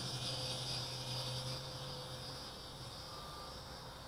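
Mini toy quadcopter's motors buzzing steadily, fading as it flies away. Crickets chirp steadily in the background.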